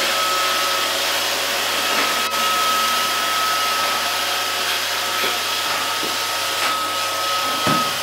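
iRobot Roomba robot vacuum running as it drives over a tiled floor: a steady whir of its fan and brushes with a thin high whine.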